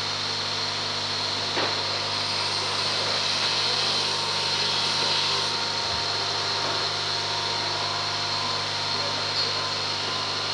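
Steady hum and whir of an electric machine tool's motor running, with no change in pitch or load.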